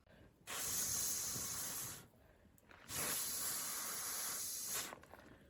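Two long hissing rushes of air, each about one and a half to two seconds, with a short quiet gap between them.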